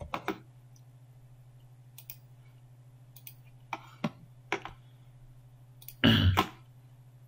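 Scattered computer mouse clicks over a steady low electrical hum, with one louder short noise about six seconds in.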